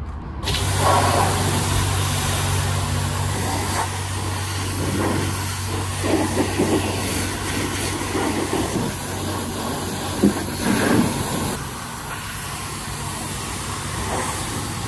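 Self-service car-wash pressure washer running: a loud hiss of high-pressure water spray that starts suddenly about half a second in, over a low steady pump hum.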